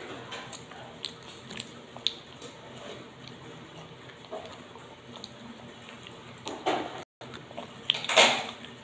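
Close-up chewing and crunching of garlic peanuts, with small scattered clicks from fingers handling the nuts. A louder burst of noise comes near the end.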